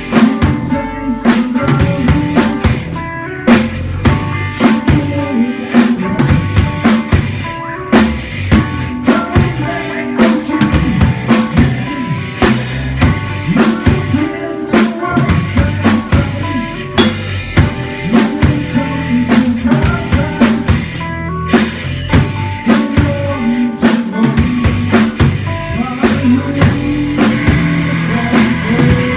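Rock band music: a drum kit playing a beat with bass drum and snare hits over sustained bass and guitar notes.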